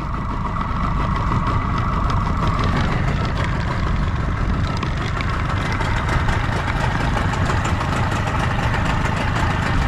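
Small boat's outboard motor running steadily as the boat moves along.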